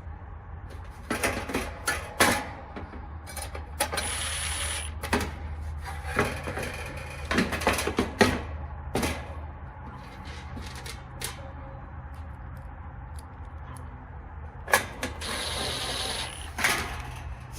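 Hands working on the opened dryer: irregular clicks, knocks and clatter of metal panels and parts being handled. There are two longer scraping or rushing spells, about four seconds in and near the end, over a steady low hum.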